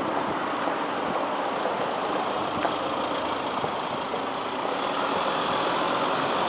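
Steady outdoor background noise: an even, constant hiss with no distinct events.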